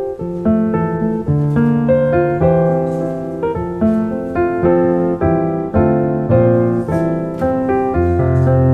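Piano music: a steady, unhurried run of notes and chords.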